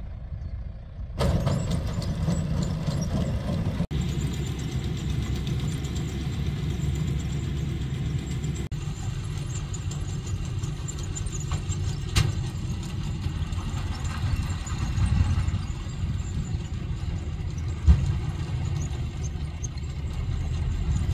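Tractor engine running steadily under load while it pulls a round baler picking up hay, with a couple of short sharp knocks partway through.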